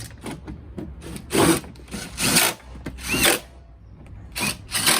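A cordless power driver running a screw home in about five short bursts, each a fraction of a second long.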